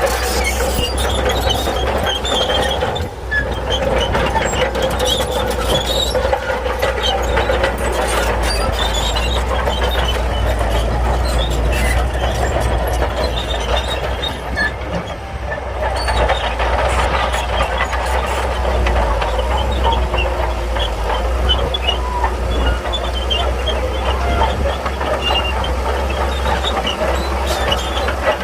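Shantui crawler bulldozer working: a steady low engine rumble under the continuous clanking and squealing of its steel tracks.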